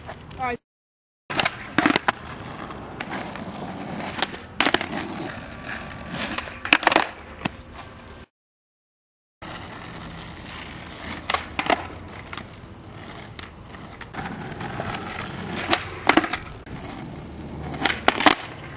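Skateboard wheels rolling on asphalt, broken by sharp cracks of the tail popping and the board slapping down on landings during flatground tricks. The sound cuts out completely twice, for about a second each.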